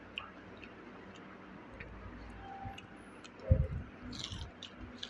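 Eating a crispy fried chicken wing: a few small clicks, then a dull thump of the bite about three and a half seconds in, followed by a brief crunch of the coating.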